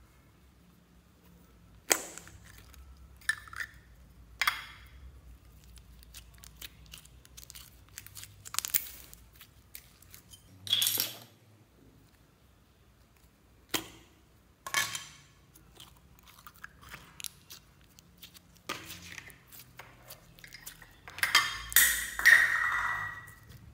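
Hands handling slime loaded with foam beads and plastic buttons in a glass bowl: scattered sharp clicks and crackles, with a longer run of dense crackling near the end.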